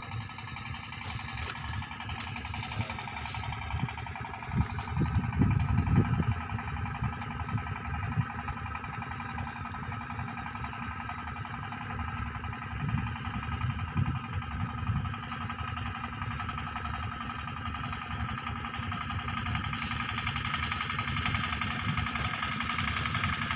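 Boat engine running steadily with an even drone, while wind buffets the microphone in low gusts that swell twice.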